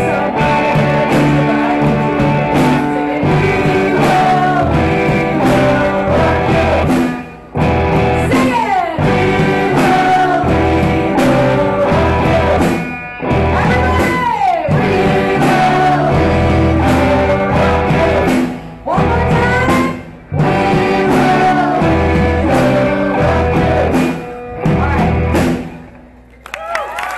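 Live rock band playing through the hall's sound system: drum kit, electric guitars and bass. The song ends near the end.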